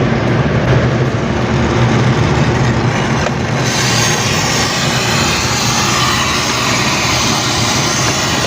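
Loud, steady mechanical drone: a low hum under a broad hiss, like running machinery such as an air-conditioning unit's fan and compressor.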